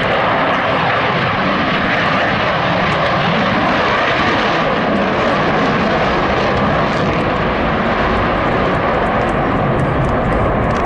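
Pair of Dassault Mirage 2000D fighter jets, each with a single M53 turbofan, making loud, steady jet noise at full power with afterburners lit as they pull up and climb away.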